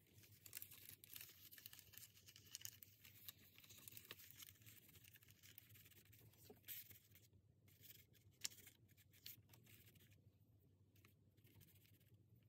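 Faint rustling of paper as hands press and smooth a glued doily and pictures down on a journal page, with a few light ticks of paper and fingers against the page.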